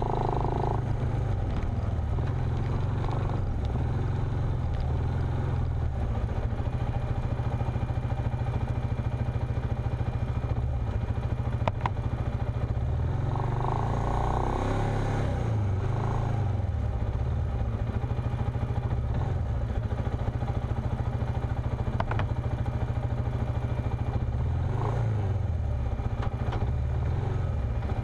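Off-road vehicle engine running close by: a steady low drone that rises and falls in pitch briefly twice, about halfway through and again near the end.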